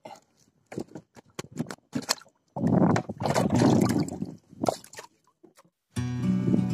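Knocks and clicks of handling on a bamboo fishing raft, with about two seconds of splashing water in the middle. Background music comes in near the end.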